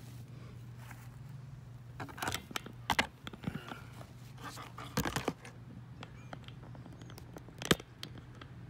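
Handling noise from a handheld camera being moved: a few short knocks and scraping rustles, the sharpest near the end, over a low steady hum.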